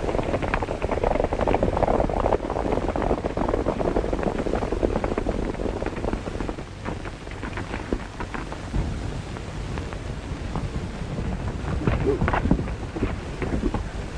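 Horses galloping over rough, rocky ground: a dense, uneven clatter of hoofbeats that falls back in the middle and grows again near the end as the riders come closer, over the hiss of an old optical film soundtrack.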